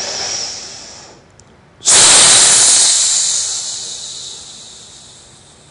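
A person breathing out forcefully with a hiss as part of a qigong breathing exercise: a softer breath out at the start, then a long strong one that begins suddenly about two seconds in and slowly fades over about three seconds.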